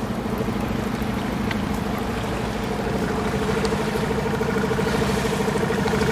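Motorboat engine running steadily with a pulsing hum, growing slightly louder near the end.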